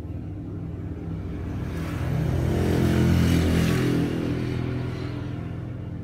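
A passing road vehicle: its engine and road noise swell up over about a second and a half, peak, and fade away again. Under it runs the steady hum of a hot air rework station blowing on the phone board.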